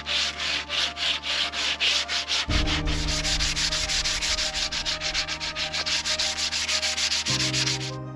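Hand-sanding an old weathered wooden board with sandpaper: rhythmic back-and-forth rasping strokes at about three a second. From about three seconds in they quicken to roughly five or six a second, and they stop just before the end.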